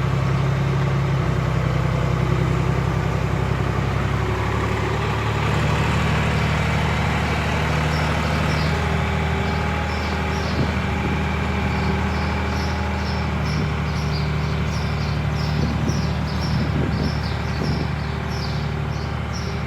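John Deere 300B backhoe's engine idling steadily, its pitch shifting slightly a couple of times. From about eight seconds in, a string of short high chirps repeats over the engine.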